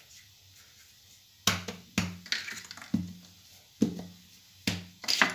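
Wooden rolling pin working a sheet of puff pastry on a hard countertop: about six knocking strokes, roughly one a second, starting a second and a half in.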